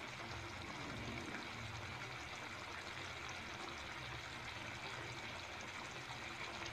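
Onion-tomato masala gravy simmering in a kadai over a gas flame: a faint, steady bubbling sizzle.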